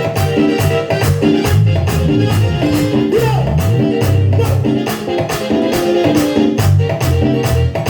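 Merengue band music with no vocals: a stepping bass line under a quick, steady beat of shaker-like percussion.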